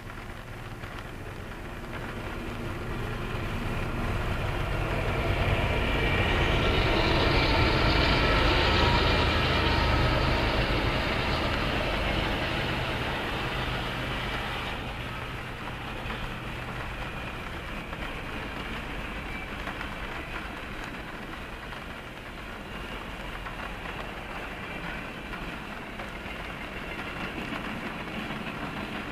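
A diesel-hauled freight train passing, heard from inside a parked car. It builds to its loudest about six to twelve seconds in as the locomotives go by, then settles into a steady rumble of freight cars rolling along the rails.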